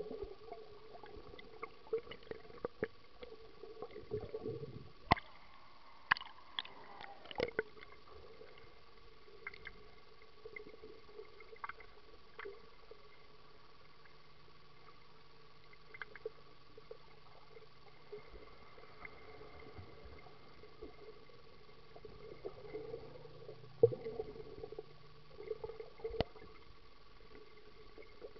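Swimming-pool water heard underwater: faint gurgling and water movement with scattered short clicks and knocks, over a faint steady hum.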